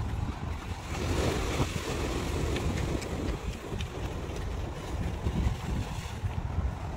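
Wind buffeting the microphone, with the sea washing over a rocky shore; the surf hiss swells about a second in and eases near the end.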